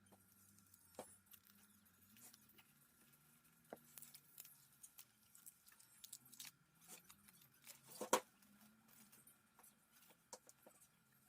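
Faint handling noises of plant packaging being unwrapped: soft rustling and crinkling with scattered light clicks and taps, one sharper click about eight seconds in.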